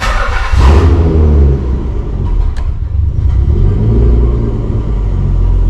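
Nissan car engine cold-started: it catches within the first second, the revs flare up briefly and then settle into a steady, loud idle.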